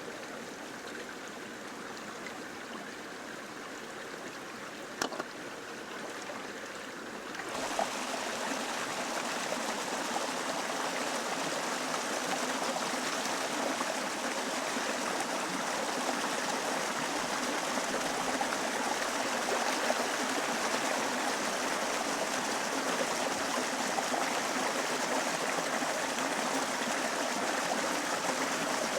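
River water running steadily, with a single sharp click about five seconds in. The rush of water grows louder and fuller at about seven and a half seconds, then holds steady.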